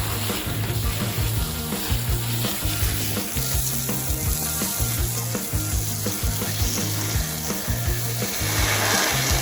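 Spray of water hissing as it rinses degreaser off a gas trimmer, growing stronger near the end. Background music with a steady beat runs underneath.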